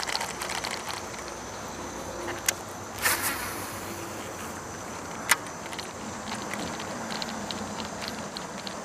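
Outdoor riverside background: a steady hiss with a thin, high, steady whine, faint quick ticks, two sharp clicks, and a short louder burst about three seconds in.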